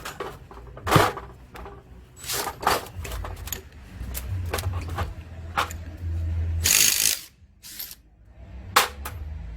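Tools working on a car alternator's 22 mm pulley nut: scattered metal clicks and knocks. A steady low running sound lasts a few seconds and ends in a short, loud rattle about seven seconds in.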